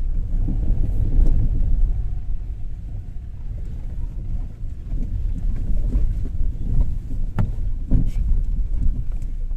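Car driving over a rough, broken road, heard inside the cabin: a steady low road rumble, with two short knocks close together near the end as the car jolts over bumps.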